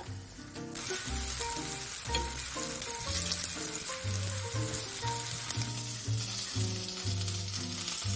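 Floured chicken breast pieces sizzling as they pan-fry in a nonstick frying pan, the sizzle growing louder a little under a second in, over background music.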